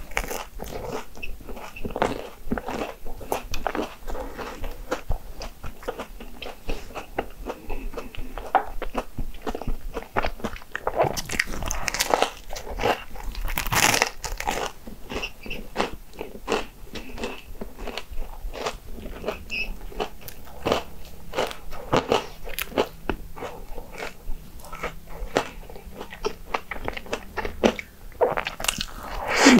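Biting and chewing Hong Kong egg waffles: a steady run of irregular crunches, with louder crunches about halfway through and again near the end.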